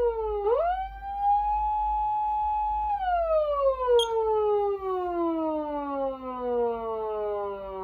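Patlite SAP500BK-PV electronic siren amplifier sounding its wail. The pitch dips briefly, climbs quickly back to a high held tone for about two seconds, then falls away in one long, slow glide, with a short click about four seconds in.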